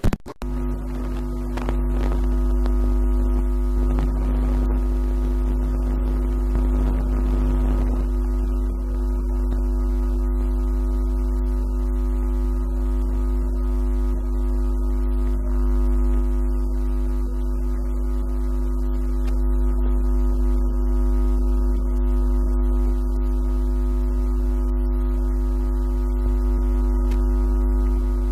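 A steady hum of several held tones over a strong deep drone, played back from a laptop. One lower tone drops out about eight seconds in, and the rest carry on unchanged.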